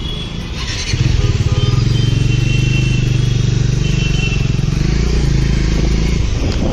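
Motorcycle engine running as it rides along, its low pulsing hum growing louder about a second in and then holding steady.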